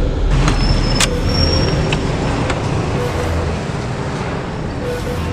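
Loud, steady, deep rumbling drone, with a few sharp clicks in its first half and a brief thin high whine about a second in.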